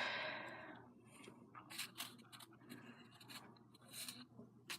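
Faint scratching, rubbing and light ticking from small craft materials being handled: pieces of fuzzy ground cover pulled apart and pressed into glue. A breathy hiss fades out during the first second.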